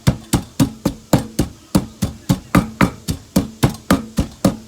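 Pestle pounding in a mortar, steady knocks about three or four a second, crushing garlic with sugar and MSG for papaya salad.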